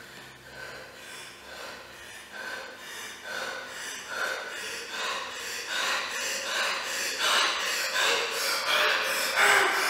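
A person breathing in short, audible, rhythmic breaths, about one or two a second, growing steadily louder and more forceful.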